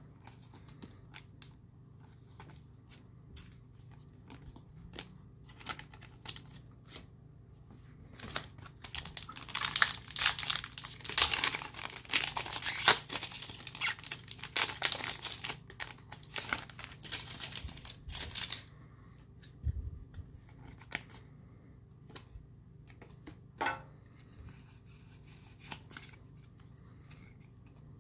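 A Pokémon TCG booster pack's foil wrapper is torn open and crinkled, loudly for about ten seconds in the middle. Before and after it come light scattered clicks and taps of trading cards being handled.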